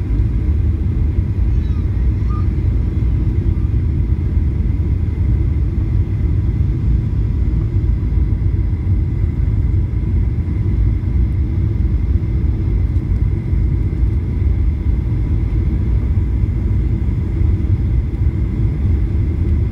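Airliner cabin noise on final approach: a steady low rumble of the engines and airflow, with faint steady whine tones above it.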